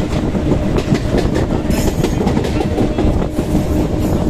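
Local passenger train running at speed, heard from its open side: wheels clacking over rail joints over a steady rumble and wind noise, while an express train's electric locomotive runs alongside on the next track.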